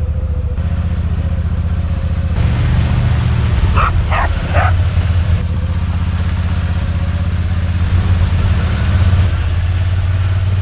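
Polaris Sportsman 1000 XP ATV's parallel-twin engine running steadily, with a dog barking three times in quick succession about four seconds in.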